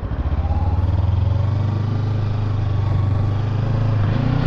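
Kawasaki Ninja 300 SE's parallel-twin engine pulling away under throttle. It grows louder over the first second, then runs at a steady note.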